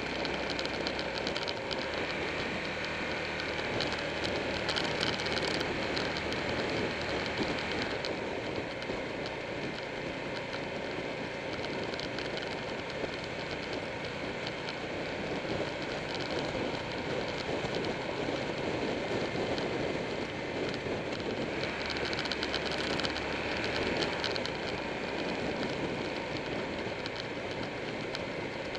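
Buell 1125R sport bike's V-twin engine running at road speed under steady wind rush and road noise on the microphone. A deeper engine hum comes through more strongly for the first several seconds and again about three-quarters of the way through.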